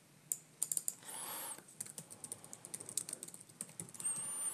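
Computer keyboard typing: quick, irregular keystrokes. Two brief, faint high-pitched whistles, about a second in and near the end.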